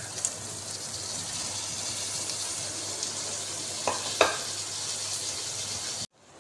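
Sliced onions sizzling in hot oil in a metal karahi with frying bitter gourd and tomato, a steady hiss. A metal ladle knocks against the pan twice about four seconds in, and the sizzle cuts off suddenly near the end.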